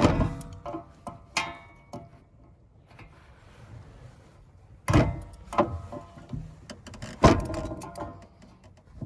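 Hand tools clanking against the metal parts of a condenser fan motor assembly. There is a series of sharp metallic clanks that ring briefly, the loudest at the start and about five and seven seconds in, with quieter rattling and handling between.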